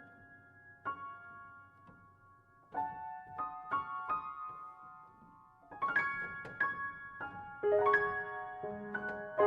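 Solo piano playing slow, quiet single notes and chords, growing fuller about six seconds in.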